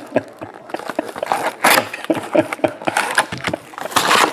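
Hands unpacking a trading-card box: cardboard boxes knocking and sliding as they are set down and stacked, with plastic shrink-wrap crinkling. Two louder rustling bursts come about a second and a half in and near the end.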